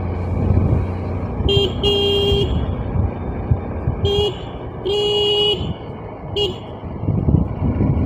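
Two-wheeler horn honking five times in a short-long, short-long, short pattern over the steady rumble of the ride and the wind.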